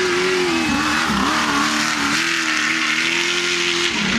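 Off-road race vehicle's engine running hard as it passes at speed, with a rushing noise as it goes by; the engine note dips briefly about a second in and again near the end, then picks up again.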